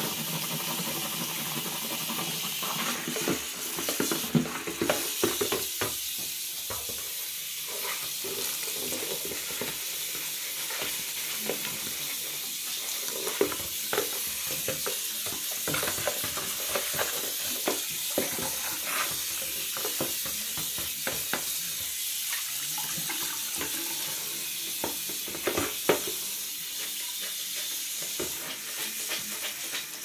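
Bathroom faucet running steadily onto a plastic tub in the sink as it is scrubbed with a sponge and handled in the basin. Water splashes throughout, with scattered small clicks and a few sharper knocks of the tub against the sink.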